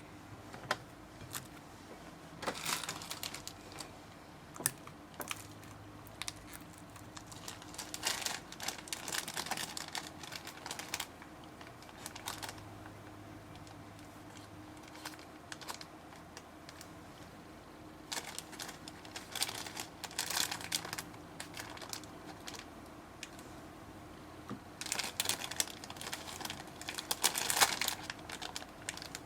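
Slime being squeezed and pressed by hand, in bursts of crackling clicks and small pops separated by short pauses.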